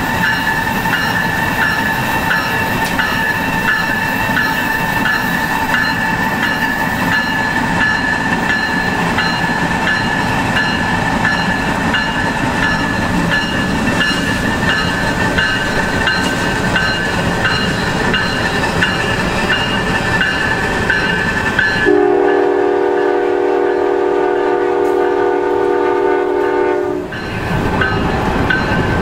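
Norfolk Southern GE Dash 9-40CW diesel locomotive running at speed alongside, a steady engine and wheel noise with a high whine and a faint even ticking. About three-quarters of the way through, its multi-chime air horn sounds one long blast of about five seconds.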